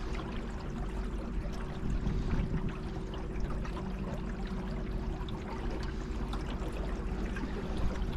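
Water rushing and splashing along the hull of a small boat under way, over a steady low hum.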